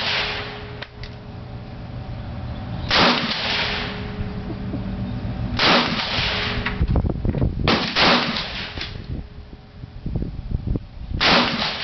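Sig 556 semi-automatic rifle in 5.56 NATO fired four single shots, two to three seconds apart, each with a short echoing tail.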